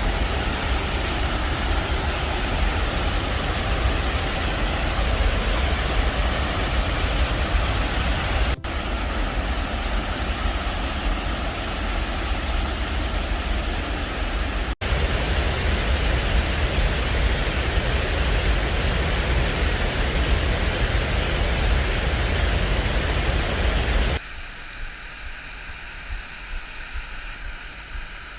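Waterfall, a steady loud rush of falling water with a deep rumble, broken twice by brief cuts. About 24 seconds in it drops suddenly to a quieter, thinner rush.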